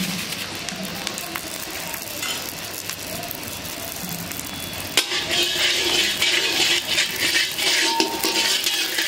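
Long metal spatula stirring and scraping whole spices as they dry-roast in an iron kadai, with light clinks of metal on iron; the scraping gets louder from a sharp click about five seconds in.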